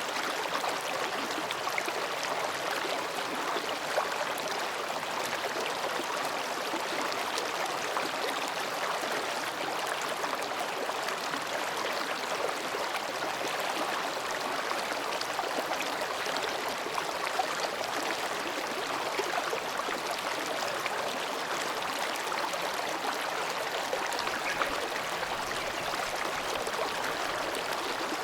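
Mountain stream babbling and splashing steadily over rocks, a continuous even rush of water.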